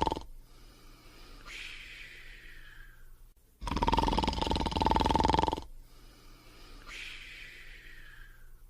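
Cartoon dog snoring in a repeating cartoon-style cycle: a soft whistle that falls in pitch, then a loud buzzing snore about two seconds long. The cycle comes round about every five seconds, with the whistle about one and a half seconds in and again near the end, and the loud snore in the middle.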